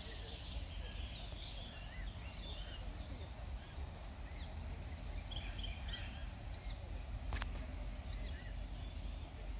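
Small birds chirping and calling in the background, many short high notes scattered throughout, over a steady low rumble. A single sharp click about seven seconds in.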